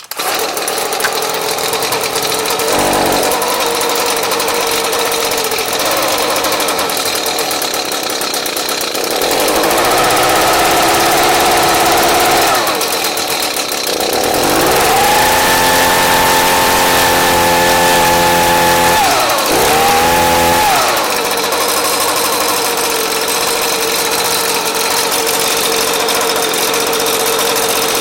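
Echo ES250 blower's small two-stroke engine running at idle, revved up twice and held at high speed for a few seconds each time, with a short blip after the second rev, then settling back to idle. It runs again now that its missing ignition spark has been restored.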